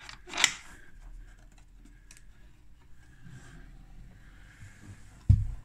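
Rusty metal latches on an old wooden carrying case being unfastened, one snapping open with a sharp click, then faint clicks and rattles as the wooden lid is lifted open. A dull, heavy thump near the end.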